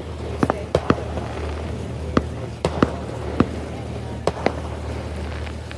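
Distant firecrackers popping irregularly, about ten sharp cracks in quick scattered succession, over the steady low hum of the boat's motor.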